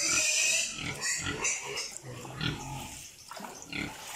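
A pig grunting in a run of short, irregular grunts, with a louder, brighter sound in the first half second.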